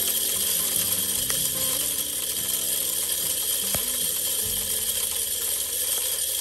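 Electric game feeder's 6-volt spinner motor running steadily on a test run, whirring as the spinner plate throws corn out in all directions.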